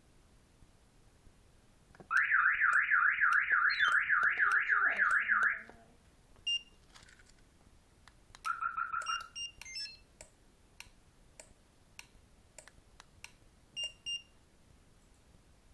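Eaglemaster E8 car alarm siren sounding a fast warbling tone that rises and falls about three to four times a second, for roughly three and a half seconds before it cuts off. Then come short chirps and beeps, a run of sharp clicks and two quick beeps near the end.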